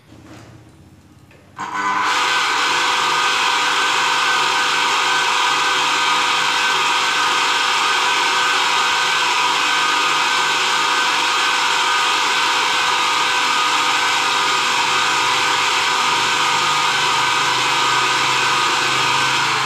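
Single-phase water pump motor, freshly wired with its run and start windings on a capacitor, switched on for a test run: it starts about one and a half seconds in and runs loud and steady with a constant whine.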